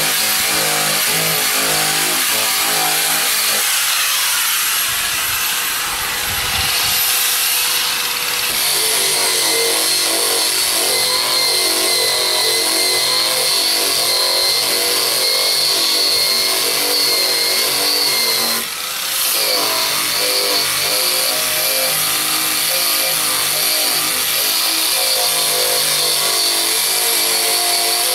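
Eastwood Contour SCT surface conditioning tool with an abrasive wheel running against a car's painted trunk lid, stripping the paint: loud grinding with a steady high whine, dipping briefly about two-thirds of the way through.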